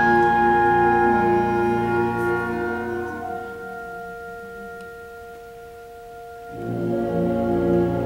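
High school symphonic wind band playing: full sustained chords thin out about three seconds in to a few soft held notes, then the whole band comes back in with a pulsing bass line about six and a half seconds in.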